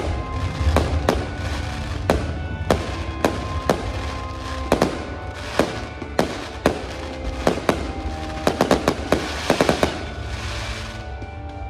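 Fireworks show: aerial shells bursting in a steady run of sharp bangs, with a quick volley of bangs about nine seconds in. Music plays underneath.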